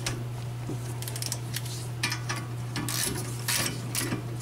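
Ratchet wrench clicking in short, irregular runs as the rear caliper bracket bolts are run down snug, over a steady low hum.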